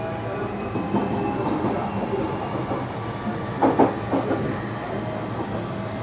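Running sound heard on board a JR Kyushu 305 series electric train, motor car MoHa 305-106, with its VVVF inverter driving permanent-magnet synchronous motors. Steady running noise carries a faint motor whine that rises slowly in pitch. About three and a half seconds in, the wheels clack twice over a rail joint.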